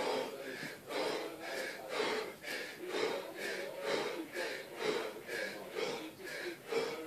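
A man breathing hard and fast under exertion, about two short, forceful breaths a second in an even rhythm.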